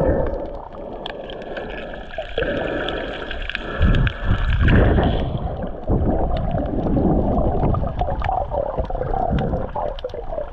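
Muffled underwater sound picked up by a camera held below the surface while snorkeling: water rushing and gurgling with low surges, and a steady high tone that stops about halfway through.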